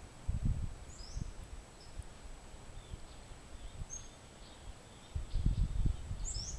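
Outdoor ambience with a few short, high bird chirps and low rumbling gusts on the microphone, about half a second in and again near the end.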